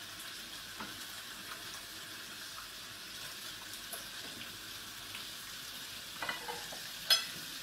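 Chunks of rabbit, pork rib, sausage and chicken wing sizzling steadily in very hot oil in a frying pan, searing rather than stewing. A short sharp clatter sounds near the end.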